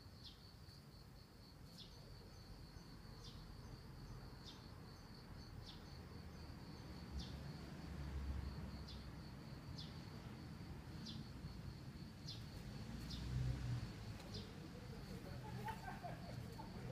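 An insect trilling steadily in the background, a fast high pulsing with a louder stroke about every second and a bit, over a low background rumble.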